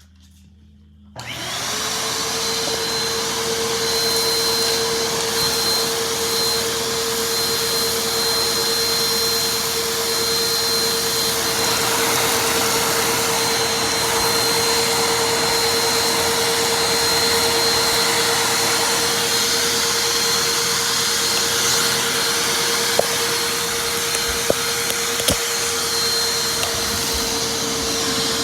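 Vacuum cleaner switched on about a second in, its motor spinning up quickly to a loud, steady whine with a constant pitch. There are a few sharp clicks near the end.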